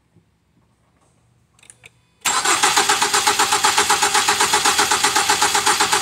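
2007 Ford Fusion's four-cylinder engine being cranked by its starter with the ignition coils unplugged (no spark). It starts about two seconds in and turns over continuously in an even, rapid chug of several compression pulses a second, without stalling. The mechanic attributes the engine's no-start to a timing problem: it is out of time.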